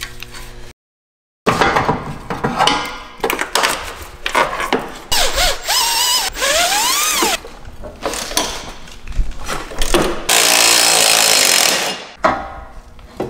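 Cordless impact wrench on a long extension working a bolt, running in short bursts with a squeal that rises and falls in pitch midway, then a steady run of about two seconds near the end.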